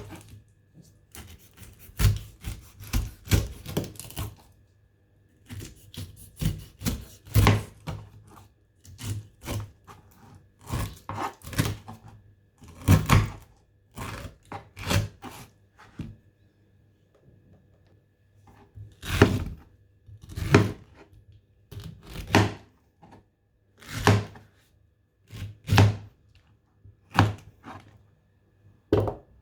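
A knife cutting the skin off a ripe pineapple, each stroke ending in a thunk on the cutting surface. The strokes come in irregular clusters separated by short pauses.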